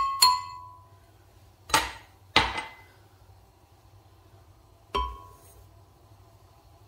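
A drinking glass clinking and knocking against a glass blender jar as cocoa and sugar are tipped in: a ringing clink at the start, two knocks about two seconds in, and another ringing clink about five seconds in.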